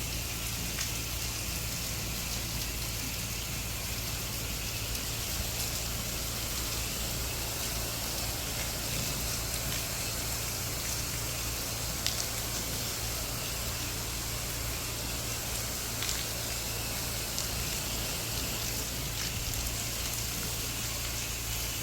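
Pressure-washing rig's spray rinsing soap solution off a house's exterior: a steady hiss of water striking the walls, over a steady low hum.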